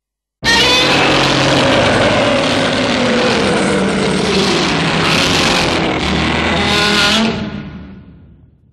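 Godzilla roar sound effect: one long, harsh roar that starts abruptly, holds loud for about seven seconds, then fades away.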